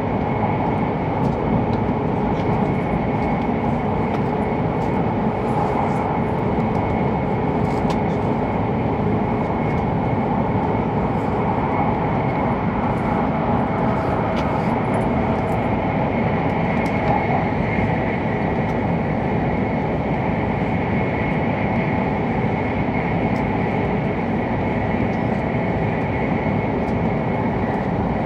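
Steady running noise inside an E7-series Hokuriku Shinkansen car at speed: an even rumble with a thin, steady high tone over it.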